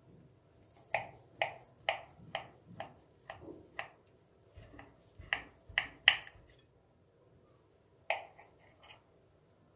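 Knife cutting through the crisp, crumbly baked shortcrust of a savory tart, giving runs of short sharp crunches about two a second, in three bursts with pauses between.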